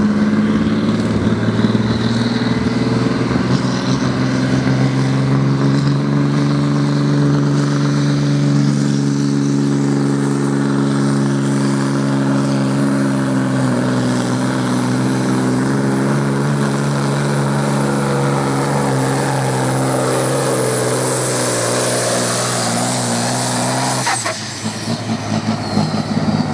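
A pulling tractor's engine running flat out under load, its pitch climbing over the first few seconds and then held high and steady, with a faint high whine above it. It cuts off suddenly about 24 seconds in, with a click, as the pull ends.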